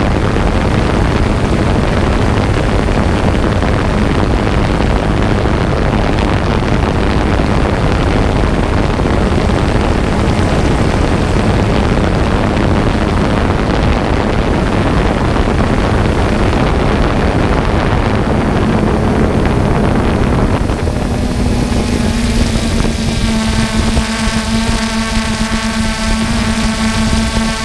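Quadcopter drone motors and propellers running, heard from the drone's own GoPro microphone: a loud, steady rushing noise with wind on the microphone and a steady motor hum underneath. About three-quarters of the way in, the rushing drops away and a steady whine with a clear pitch comes forward.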